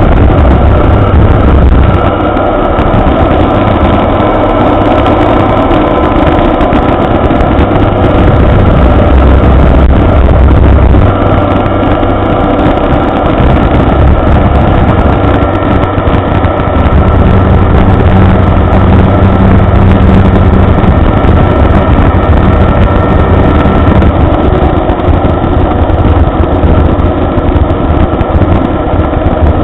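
Inverted Rotax 582 two-stroke engine turning a wooden three-blade propeller, heard from inside the Avid Flyer's cockpit in flight. The engine runs loud and steady, its note shifting several times as the rpm is brought down.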